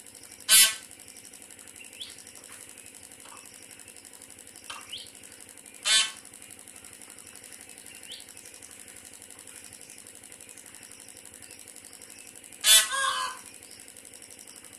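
Peahen (female Indian peafowl) calling: three loud, short calls, one about a second in, one around six seconds in and a longer double call near the end, with a few much fainter short calls between them.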